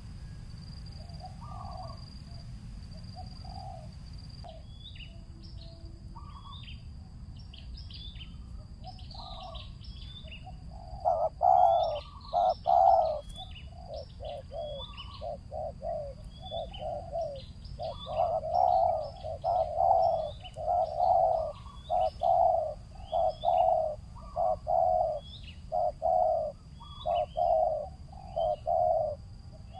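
Spotted dove cooing in a series of short, low coos. The coos grow loud about ten seconds in and come in quick succession over the last third. Small birds chirp at a higher pitch, and a steady high-pitched tone runs throughout.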